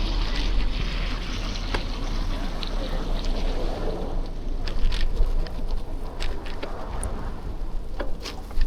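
Bicycle ride in a snowstorm heard on an action camera: a steady wind rumble on the microphone and road noise from tyres and traffic. Scattered clicks and knocks run through it, the sharpest near the end.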